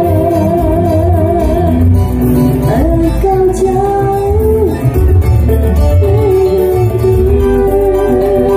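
Live band music: a woman sings long held notes with wide vibrato over an electronic keyboard and electric guitar, with a strong bass underneath.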